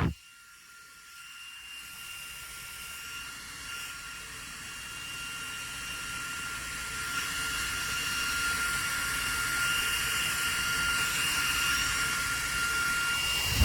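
Small battery-powered clip-on portable fan running: a steady high-pitched motor whine over a rush of air, growing gradually louder.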